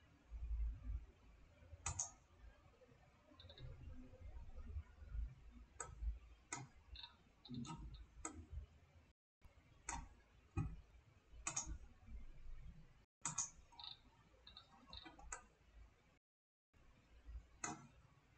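Faint computer mouse clicks, about a dozen at irregular intervals, with a few low thuds in between.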